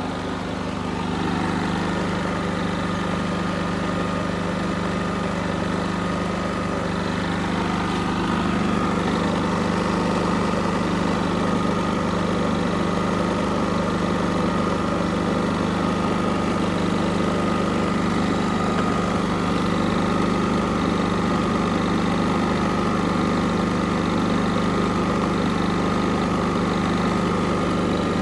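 Westinghouse iGen4500 inverter generator's gas engine idling smoothly in efficiency mode, holding a steady pitch.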